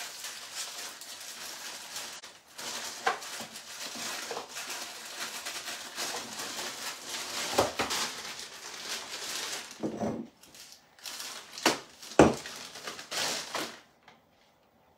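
Kitchen handling noises: steady rustling and crinkling, broken by several sharp knocks and clinks of glassware on the counter, the loudest about twelve seconds in. It stops about a second before the end.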